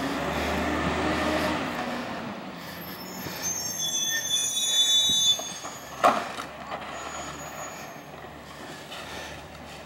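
Peterbilt 348 CNG rear-loader garbage truck pulling ahead with its engine running, then its brakes squealing for about two seconds as it comes to a stop at the next cart. A sharp clank follows about six seconds in.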